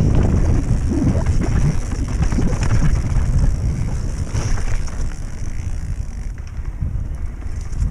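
Wind buffeting the microphone of a camera on a mountain bike riding a stony singletrack, a deep rumble mixed with the crunch and rattle of the tyres and bike over loose stones. It is loudest in the first few seconds and eases somewhat after.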